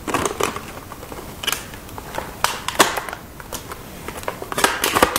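Hands handling a board game's plastic miniature and its packaging: irregular clicks, taps and short rustles, the sharpest near the end.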